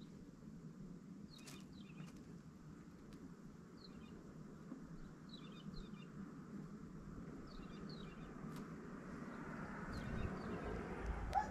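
Small songbirds giving short, high chirps, mostly in quick pairs every couple of seconds, over a faint low steady rumble that grows slightly louder near the end.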